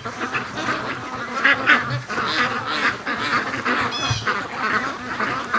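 A flock of domestic ducks quacking, with many short calls overlapping throughout and one clearer call about four seconds in.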